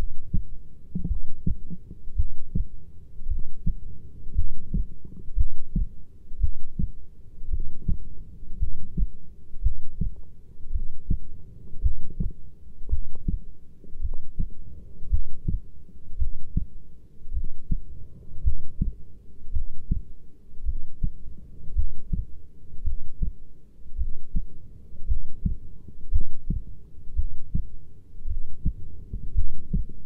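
A heartbeat recording: steady, regular beats about once a second, each a low, dull thump.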